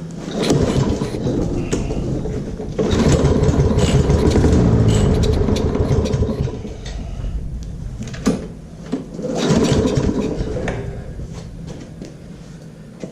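Toro self-propelled lawnmower's small engine being pull-started: it sputters into running with a rising and falling pitch, dies away, then is pulled again. It will not keep running, which the owner puts down to a carburetor with gunk in it that is not getting fuel to the engine.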